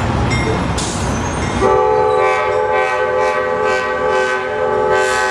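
Train rumble, then a train horn sounding one long steady blast starting about a third of the way in and held through the rest.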